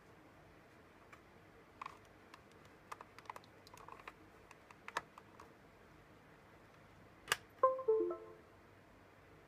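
Scattered small clicks and taps, then a sharp click about seven seconds in, followed at once by a short computer chime of a few falling notes: the USB device notification as the CC3D flight controller reconnects to the computer.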